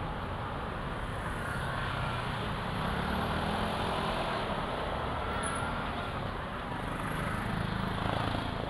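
Steady road traffic noise: a continuous low rumble of vehicle engines and tyres with no distinct single event.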